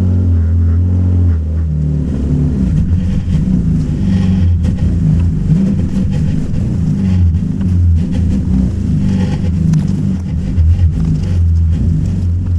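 Car engine running hard, its revs rising and falling unevenly as the car is driven sideways.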